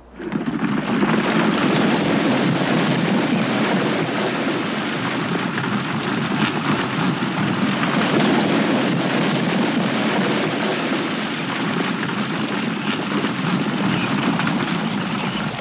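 A herd of plains zebras stampeding through shallow water and dust, a dense rumble of galloping hooves and splashing that starts suddenly and keeps on loud.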